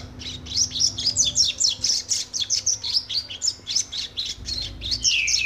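Double-collared seedeater (coleiro), a young male still refining his song, singing a fast continuous run of high chirping notes, with a few downward-sliding whistled notes near the end.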